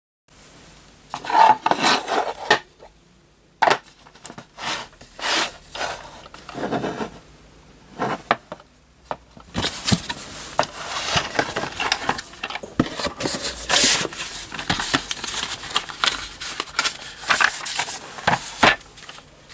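Small metal screwdriver bits and tools being handled in a beech wood box: a run of sharp clicks, clinks and rubbing scrapes, busier in the second half.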